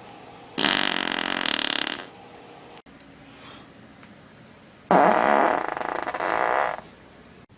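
Two loud farts, each lasting about a second and a half: the first about half a second in, the second about five seconds in.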